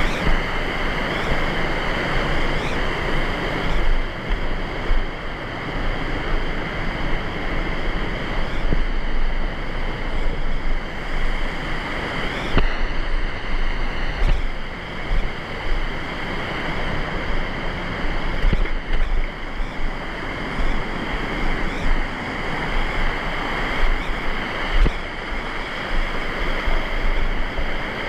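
Steady rushing of a fast mountain river flowing over rocks, a loud continuous wash of water with small rises and falls.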